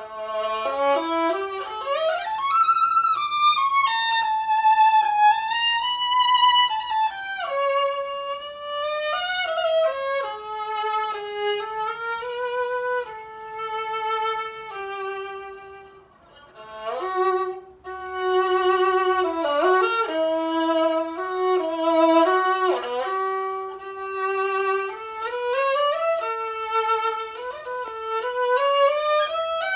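A quarter-size Joseph LT model 800 violin played with the bow, a single melodic line with vibrato and sliding shifts, opening with a rising slide. There is a brief break in the playing about halfway through.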